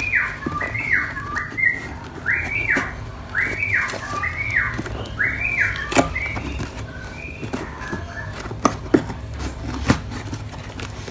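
Scissors snipping and scraping along the packing tape of a cardboard box, with sharp clicks, the loudest about six and nine seconds in. Behind it a high whistled tone rises and falls over and over, roughly every two-thirds of a second, fading out after about seven seconds.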